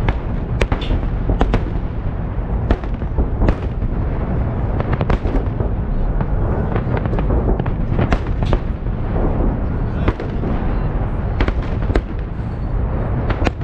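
Festive fireworks salute: a continuous low rumble of distant volleys, broken by a dozen or more sharp bangs of shells bursting at irregular intervals.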